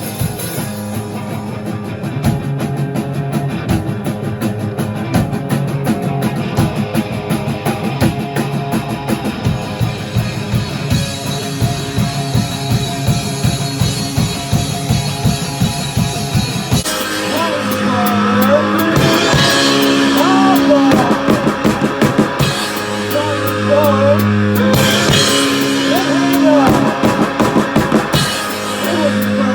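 Rock music with a drum kit keeping a steady beat. About halfway through, the full band comes in louder, with guitar and crashing cymbals.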